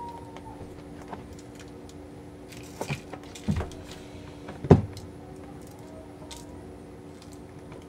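Knocks and clicks from trimming a bar of soap with a small hand tool over a plastic-covered surface: a few sharp ones, the loudest about five seconds in, with faint ticks between, over a steady low hum.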